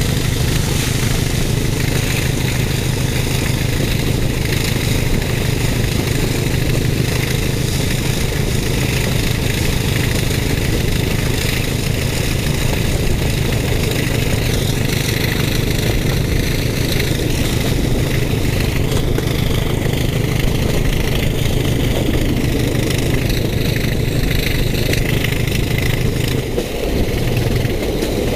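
Class 31 No. 31438 and Class 20 D8069 diesel locomotives working hard at the head of the train, heard from an open carriage window: a steady, loud engine drone under rushing air. Near the end the drone sags briefly, then picks up again.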